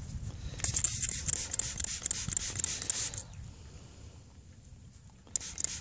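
Small hand spray bottle squirting onto a freshly dug, mud-covered coin to rinse it: a quick run of short hissing sprays, about three a second, for two or three seconds, then a pause and more sprays near the end.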